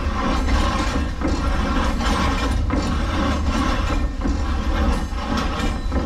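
Water-powered up-and-down sash saw running, its wooden frame and gearing clattering in a steady rhythm of about two strokes a second over a deep low rumble.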